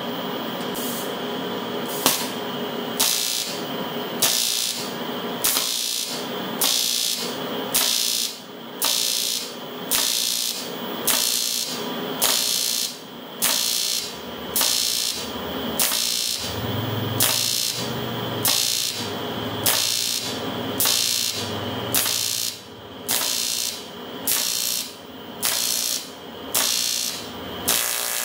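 TIG welding arc on aluminium, crackling and buzzing in a steady pulse of about three beats every two seconds over a constant hum. The rhythm starts about two seconds in and stops near the end.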